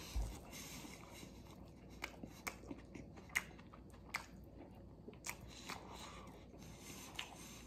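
A man chewing a mouthful of veggie burger sandwich on soft bread, with scattered sharp wet mouth clicks and smacks.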